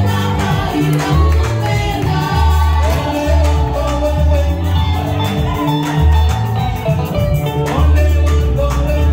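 A women's vocal group singing a Swahili gospel song with a live church band of guitar, keyboard and drums, over a steady beat and heavy bass.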